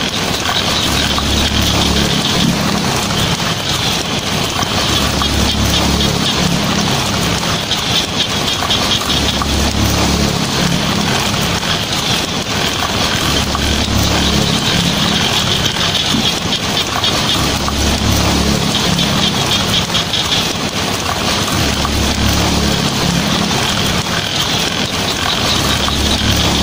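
Heavy rain drumming steadily on a tin roof, a dense even patter, with a low rumble swelling about every four seconds.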